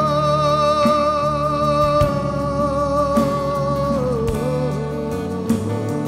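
Live band playing a song: a long sung note held with vibrato over drums and guitars, stepping down in pitch about four seconds in.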